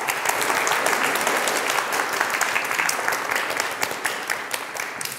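Audience applauding at the end of a talk, dense clapping that thins out near the end.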